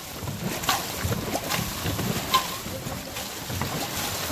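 Dragon boat paddles digging into and splashing through the water, with repeated sharp splashes over a steady wash. There is gusty wind noise on the microphone.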